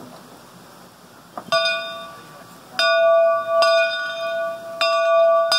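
Steam locomotive's bell being rung from the cab: four clangs, the first about a second and a half in, each ringing on with a steady tone.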